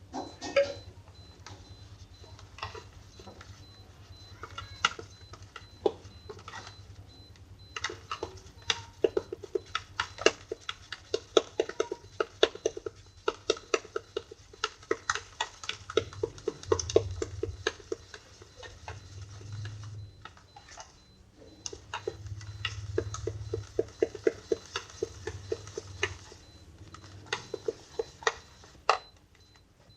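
Slime being squished and poked, making many small sharp clicks and pops, at times in quick runs of several a second.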